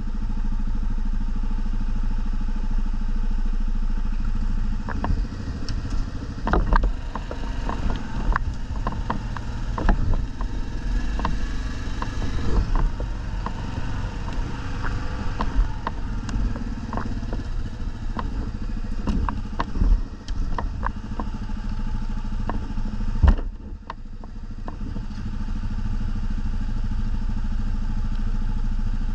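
ATV engine running steadily, with frequent knocks and rattles over the top. The engine sound drops away briefly about three-quarters of the way through, then picks up again.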